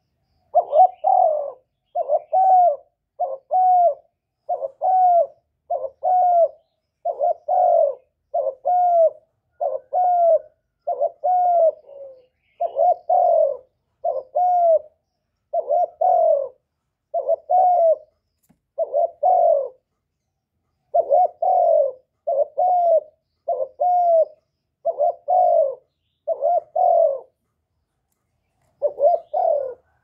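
Spotted dove giving a steady run of short coos, about one a second, each note dipping in pitch, with brief pauses about halfway through and near the end.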